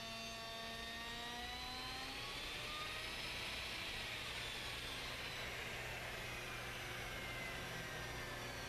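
Electric router with a slotting cutter spinning free, not cutting: a steady motor whine that rises slightly in pitch, then drifts slowly down, over a low hum.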